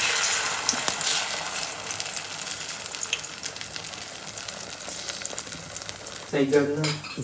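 Food frying in a hot pan: a steady high-pitched sizzle with scattered crackles that slowly grows quieter.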